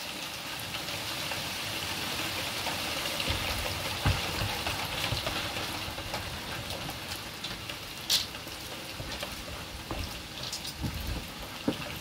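Steady hiss of light rain falling outdoors, with a few sharper taps of drops about four seconds in, around eight seconds and near the end.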